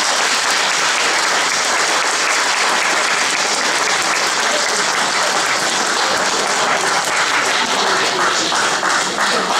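Audience applauding: a dense, steady round of clapping from many people.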